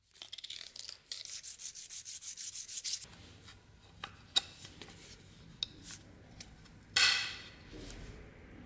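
A small metal piece rubbed back and forth by hand on sandpaper. A quick run of even strokes, about seven a second, is followed by a few light clicks and one longer, louder scrape near the end.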